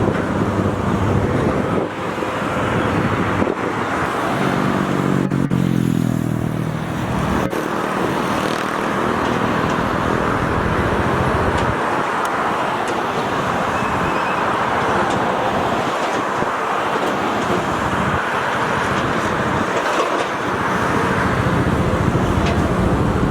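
Road traffic running steadily. About four to seven seconds in, one vehicle passes, its engine note falling.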